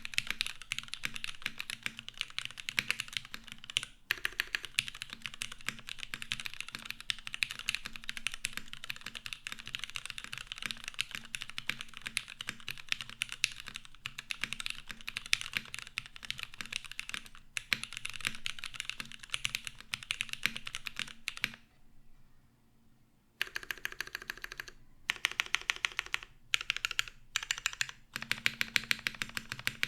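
Typing on a gasket-mounted Noxary 378 mechanical keyboard with lubed Cherry MX Black Clear-Top linear switches on an aluminium plate and GMK keycaps, a rapid, continuous clatter of keystrokes. About two-thirds through it stops for a moment, then resumes in shorter bursts.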